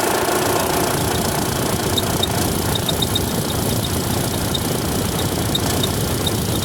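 Radiator cooling fan of a 2014 Chevrolet Tracker switching on and running with a steady rush, over the idling engine, with irregular short high chirps like a cricket starting about a second in: the sign of a failing fan motor that needs replacing.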